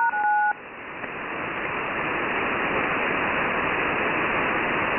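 Shortwave receiver hiss on an HF voice channel between transmissions: a steady rush of static with no signal on frequency. At the very start there is a brief two-tone beep lasting about half a second.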